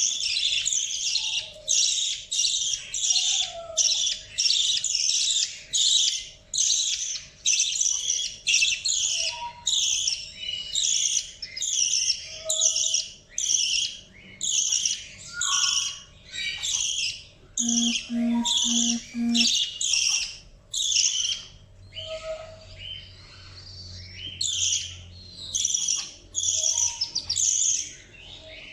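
Budgie chick chirping in quick repeated high-pitched calls, several a second, with brief pauses. About two-thirds of the way through, four short low beeps sound in an even row.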